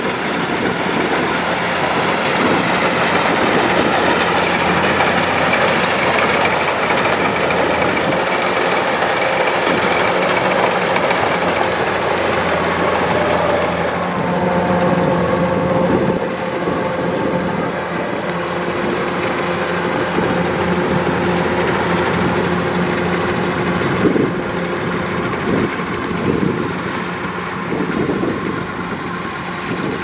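Kubota DC-105X rice combine harvester running steadily while harvesting: its diesel engine and cutting and threshing machinery go together as one continuous mechanical noise.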